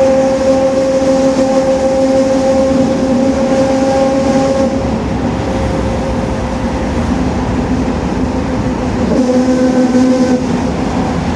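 City bus rear-axle differential whining at highway speed: a steady pitched gear whine over road and engine noise. The whine fades about halfway through and comes back strongly about two seconds before the end.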